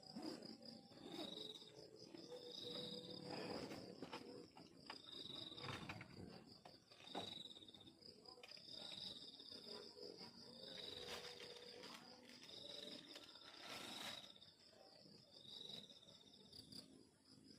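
Crickets calling: one trills steadily on a high note while another gives short chirps every second or two, with faint scattered clicks and knocks among them.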